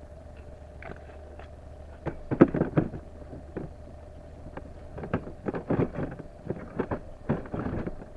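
Seasoning shaker rattled over steak in several short bursts, about two seconds in and again through the second half, over a steady low hum.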